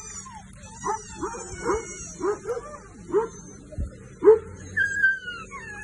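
Shelter dogs barking and yelping, short barks coming about every half second, with a drawn-out whine falling in pitch near the end.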